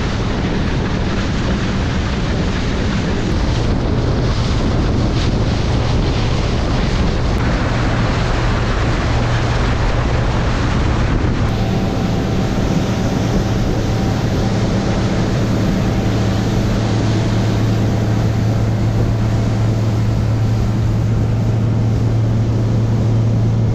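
Outboard motor running steadily at speed, driving a Lund fishing boat across choppy lake water, with the hull hissing and slapping through the waves and wind buffeting the microphone.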